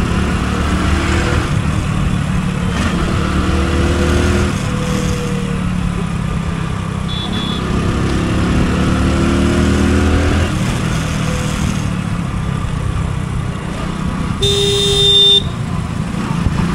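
Motorcycle engine running while riding through street traffic, its pitch rising and falling around the middle. A vehicle horn gives a short toot about seven seconds in and a longer honk near the end.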